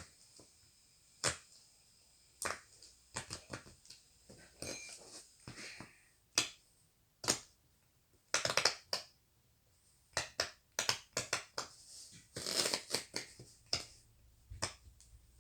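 Silicone pop-it fidget toy being pressed, its bubbles popping in irregular sharp clicks, some of them in quick runs.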